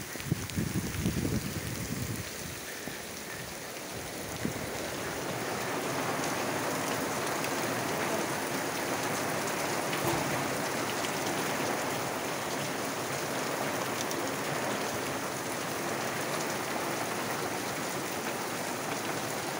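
Rain falling steadily, a continuous hiss that swells louder about four to five seconds in and then holds. A few low rumbling bumps come in the first couple of seconds.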